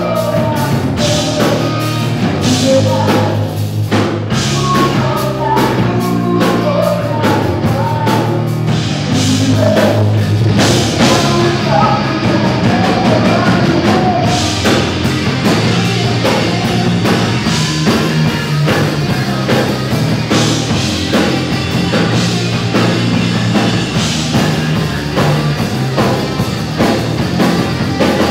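Live hard rock band playing: electric guitars, bass and drum kit, with a singer's vocals over them.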